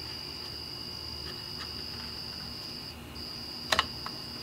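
A small blade prying a cracked rubber collar off the cylinder chamber of a Porter-Cable framing nailer: faint ticks, then a sharp double click near the end. A steady high-pitched tone runs underneath.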